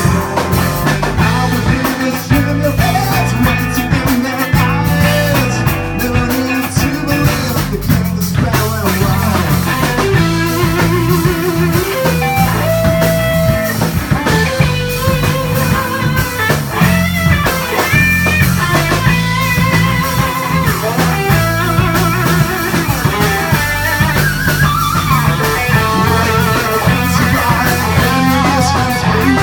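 Live rock band playing an instrumental passage: electric guitar lines with wavering, bending notes over bass guitar and a drum kit.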